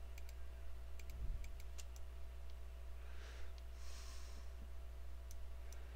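A few faint computer mouse clicks as mesh faces are selected, over a steady low electrical hum, with a soft breath about three to four seconds in.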